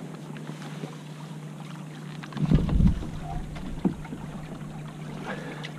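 Faint water and hull noise aboard a Hobie 16 catamaran sailing slowly in light wind, with a steady low hum under it. About two and a half seconds in comes a brief low rumble.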